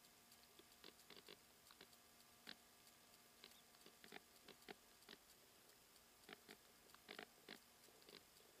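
Near silence: faint, irregular clicks and crackles over a faint steady hum.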